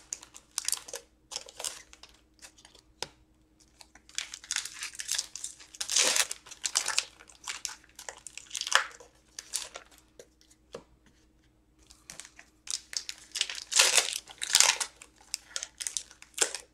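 Foil trading-card pack wrappers being torn open and crinkled by hand, in irregular bursts with pauses of a second or two between packs.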